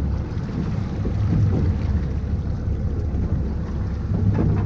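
A boat's engine running with a steady low rumble, with wind buffeting the microphone.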